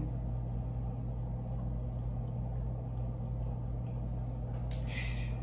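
Steady low electrical hum, with a short breathy sound near the end.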